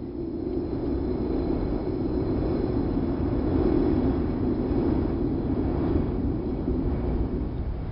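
Wind sound effect: a low, steady rush of wind that swells a little in the middle.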